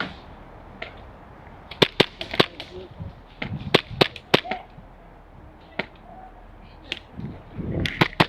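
Airsoft guns firing: irregular sharp snapping shots, some in quick pairs and short clusters, with softer low rustles between them.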